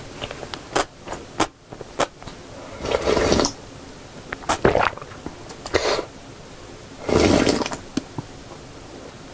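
Broth of janchi-guksu (Korean noodle soup) being drunk straight from the bowl, heard close up: several loud sips, the longest about three and seven seconds in, with small mouth clicks between.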